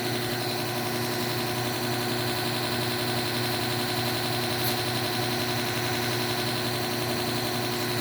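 Electric belt knife sharpener running steadily with a leather stropping belt fitted: a constant motor hum with a thin high whine.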